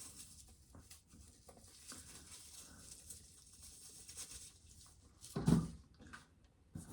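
Faint rustling and light clicks of dried ears of corn being handled and emptied out, with one louder thump about five and a half seconds in.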